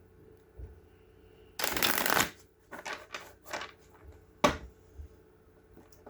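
Tarot deck being shuffled by hand: a brief rush of cards about one and a half seconds in, then scattered light taps and clicks of the cards, one sharper click near the middle.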